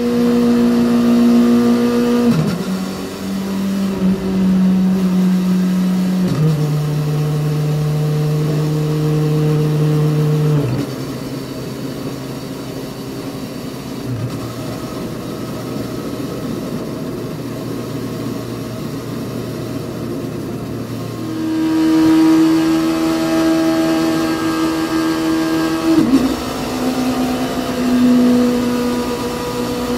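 Honda CB400 Super Bol d'Or's 400 cc inline-four engine holding steady cruising speed at 60 km/h. Its pitch steps down with each upshift from second to fifth gear, from about 7,700 to about 4,300 rpm. About 22 seconds in it climbs to a higher, louder note at 80 km/h in second gear, about 10,400 rpm, then drops twice more as it shifts up to third and fourth.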